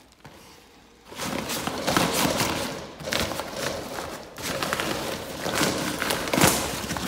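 A padded paper mailer crinkling and scraping against the metal edges of a mailbox compartment as it is tugged out, with small knocks. It starts about a second in.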